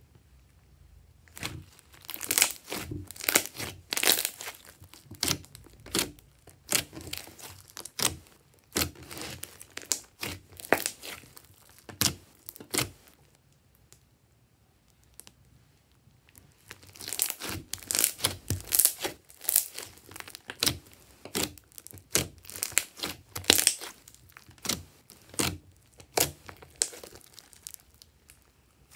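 Glossy slime being stretched and pulled apart, giving a dense run of sticky clicks and crackles that stops for a few seconds about halfway and then starts again.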